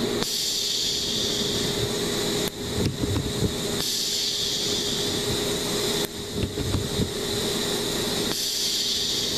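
Compressed air hissing through a 12 V pneumatic solenoid valve and its tubing in three bursts of about two seconds each, the valve clicking as it opens and shuts.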